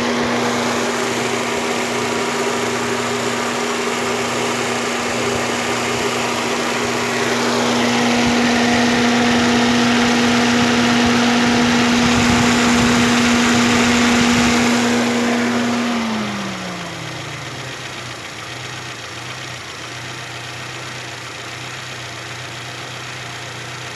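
Electric radiator cooling fan of a Fiat Palio 1.6 8v SPI running with a steady hum over the idling engine, now sounding normal with no fault noise. About sixteen seconds in the fan cuts off and its pitch falls as it spins down, leaving the engine idling on its own.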